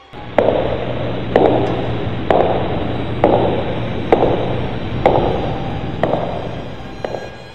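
Slow, heavy footsteps sound effect: eight steps about a second apart, each followed by a short echo, over a steady low hum, fading slightly near the end.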